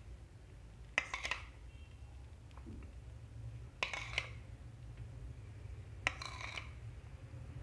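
Metal kitchen utensils clinking against a cooking pot: three short bursts of clinks a few seconds apart, over a low steady hum.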